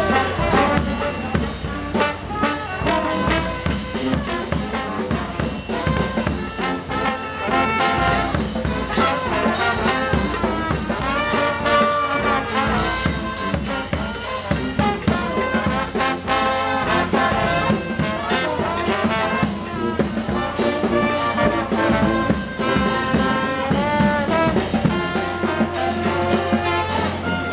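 Street brass band of trumpets, trombones and a sousaphone playing live jazz with a steady beat.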